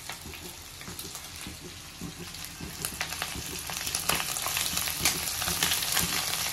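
Curry leaves and whole spices sizzling and crackling in hot mustard oil in a kadhai, a steady hiss dotted with sharp pops that grows louder and busier about four seconds in.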